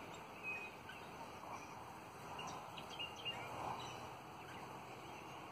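Twenty-eight parrots (Australian ringnecks) feeding and chattering softly: a few short chirps scattered through, over a faint steady hiss.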